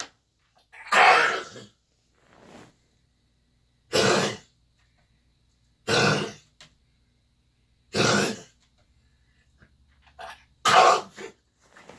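Australian shepherd coughing from kennel cough: repeated short coughing fits about every two seconds, five strong ones with a couple of fainter ones in between.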